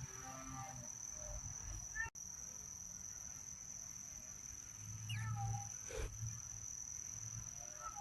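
Budgerigars chirping and chattering softly in short scattered calls, with a falling chirp about five seconds in, over a steady high whine.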